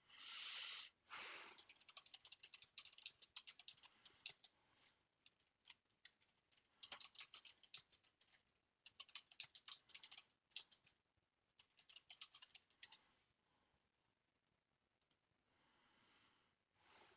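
Keys typed in several quick runs of sharp clicks, with two short rushes of noise at the start.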